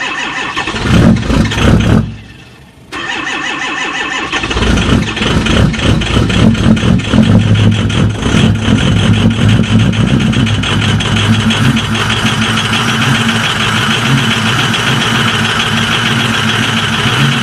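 Large engine cold-starting: it fires in loud, uneven bursts, then catches about four seconds in and settles into steady running.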